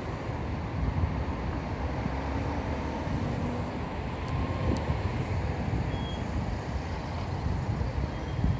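Steady low rumbling background noise with no distinct events standing out.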